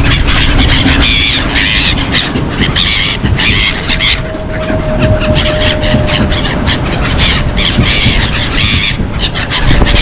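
Black-headed gulls calling over and over in short, harsh screeches as the flock hovers close around the microphone, over a constant low rumble.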